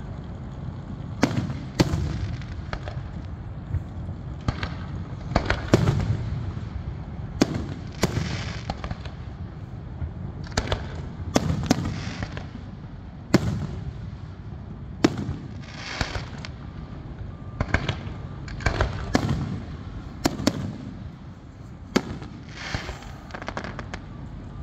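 Fireworks display: sharp bangs one after another, every second or two, several followed by a drawn-out hiss, over a steady low rumble.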